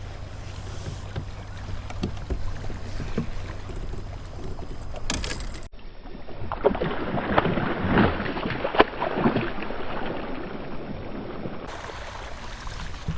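Water sloshing and splashing around a kayak, with scattered small knocks. About halfway through, the sound cuts abruptly to a duller recording, dense with irregular splashes and knocks for several seconds, before the open-air sound returns.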